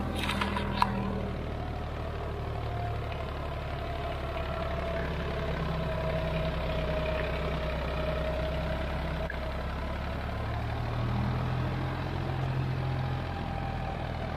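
Solis 5015 tractor's diesel engine running steadily under load while pulling a disc harrow through the soil, with a single sharp click about a second in.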